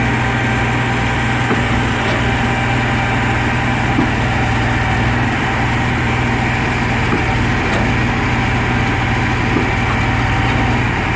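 Engine drone of concrete-pouring machinery running steadily at an even pitch, with a strong low hum and no change in speed.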